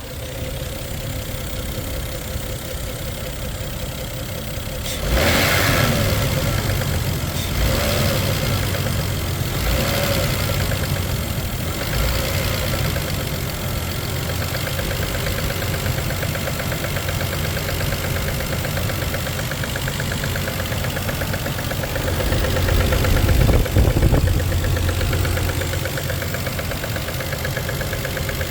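Toyota 1JZ-GE VVT-i 2.5-litre straight-six, warmed up, running with the knock it develops once at operating temperature. It idles and is revved briefly several times: sharp rises at about 5, 8, 10 and 12 seconds in, and a longer rise and drop about 22 to 24 seconds in.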